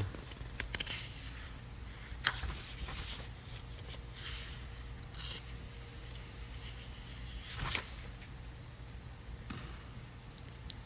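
Faint rustling and a few light clicks, the sound of someone searching through a text for a passage, over a steady low background hum.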